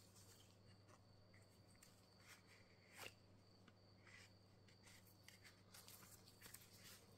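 Near silence over a low steady electrical hum, with faint rustles and light taps from gloved hands handling a leather ID holder and sliding a plastic card out of its pocket; one sharper tap about three seconds in.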